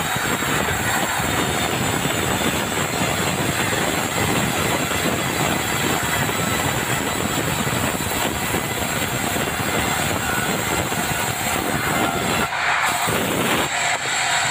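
Sawmill band saw ripping a dry bengkirai (yellow balau) beam: a steady, loud cutting and machine noise from the blade in the hardwood and its motor. The sound thins briefly twice near the end.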